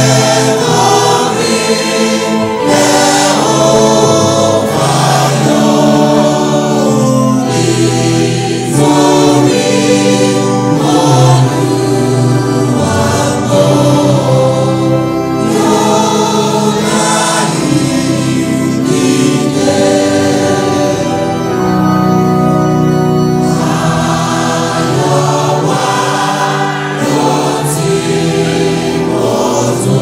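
A church choir singing a Yoruba hymn in full voice, many voices holding long notes together.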